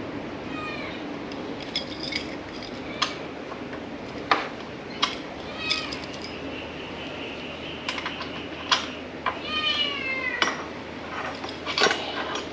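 Metal Allen keys clinking as they are handled over a steel motorcycle luggage rack: about a dozen sharp clicks at uneven intervals. Short animal cries that fall in pitch come near the start and again about ten seconds in.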